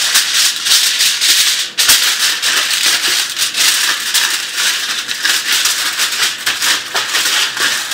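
Aluminium foil crinkling and crackling as hands press and smooth it into a round cake pan, a steady stream of crackles with a brief let-up a little under two seconds in.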